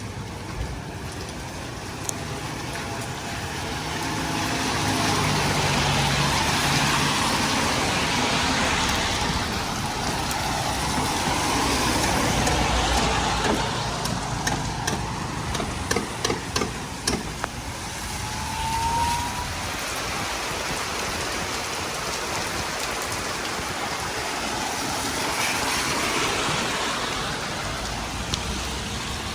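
Cars driving past on a rain-soaked street, their tyres hissing on the wet road, over steady rainfall. The traffic swells twice, with a quick run of sharp clicks about halfway through.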